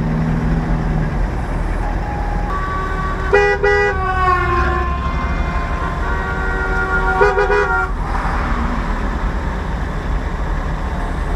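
Car horns honking in two bursts about four seconds apart, each a chord of several tones, with a held horn tone between them. Under them runs the steady low rumble of a car driving along.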